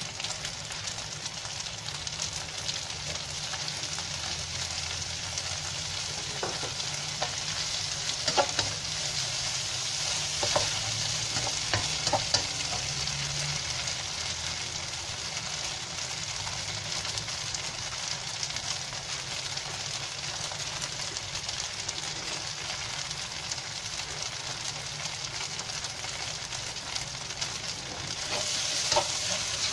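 Yellow noodles and flat rice noodles sizzling in a nonstick wok as they are stir-fried with a plastic spatula, a steady frying hiss with a few short scrapes and taps of the spatula against the pan in the middle stretch.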